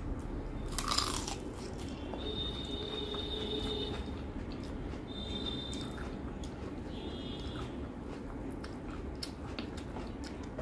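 Close-miked chewing of a hand-fed mouthful of rice and curry, with wet mouth clicks throughout and one louder crunch about a second in. Fingers mix rice on a steel plate.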